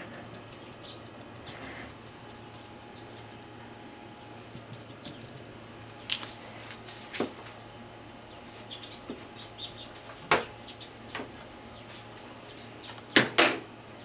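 Kitchen handling around a plastic microwave pasta cooker: faint light ticks as salt is shaken in at the start, then a few scattered sharp clicks and knocks. The loudest is a quick double knock near the end as a pat of butter is put in. A low steady hum runs underneath.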